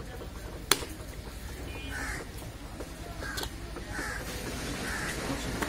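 Butcher's cleaver chopping beef on a wooden log block: a sharp knock under a second in and another a little past halfway. Short calls repeat several times in the background.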